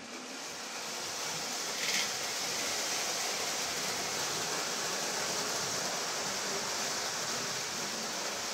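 Lionel toy steam locomotive and freight cars running on three-rail tubular metal track: a steady whirring of motor and wheels that builds over the first second as the train gathers speed, with a brief louder burst about two seconds in.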